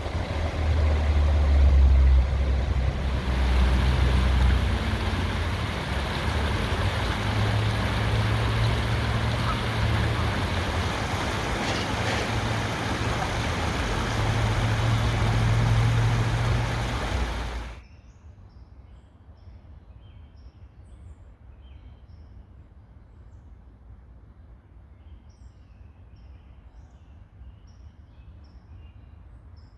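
A loud, steady rushing noise with a heavy low rumble, like falling water or wind, cuts off abruptly about eighteen seconds in. After that, small birds chirp faintly and repeatedly over a quiet background.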